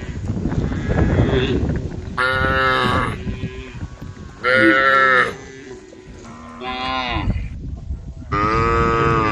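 Cows mooing, one call after another: about four long, drawn-out moos, with a low rumble under the first two seconds.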